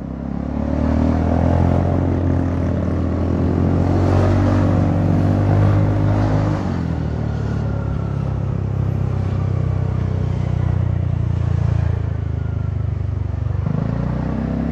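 Honda Forza 300 single-cylinder scooter engine heard through an aftermarket exhaust silencer freshly repacked with fibreglass wool. It pulls away with its pitch rising for about six seconds, then eases off and runs steadily. As the new packing shifts, the exhaust note is starting to get louder.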